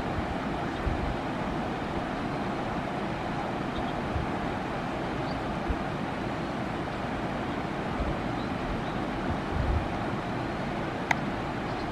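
Steady rushing of water spilling over and down a concrete dam face, with a few low wind thumps on the microphone.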